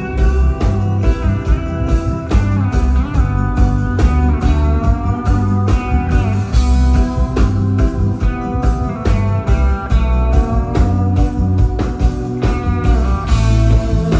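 Live reggae-rock band playing an instrumental passage: an electric guitar lead with bent, gliding notes over a steady drum beat and heavy bass.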